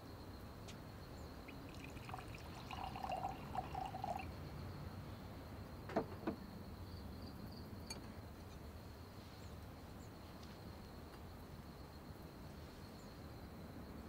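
Wine poured from a bottle into a glass with a short gurgling pour lasting about two seconds, followed a couple of seconds later by two light clinks of glass set down on the table.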